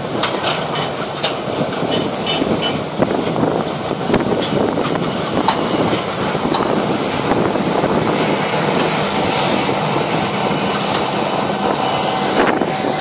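An ML950 air drill with ALIVE shank openers working through stubble behind a tractor: a steady, dense rumble and rattle of shanks, packer wheels and frame in the soil, with scattered sharp ticks. Wind buffets the microphone.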